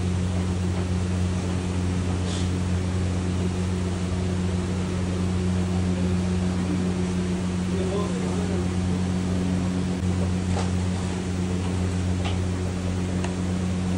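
Steady low machine hum of commercial kitchen equipment, unchanging throughout, with a few faint clicks and knocks from the work.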